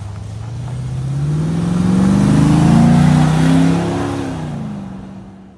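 Lifted Jeep Grand Cherokee WJ's 4.7-litre V8 accelerating as it drives past. The engine note climbs steadily, is loudest about three seconds in, then drops and fades away.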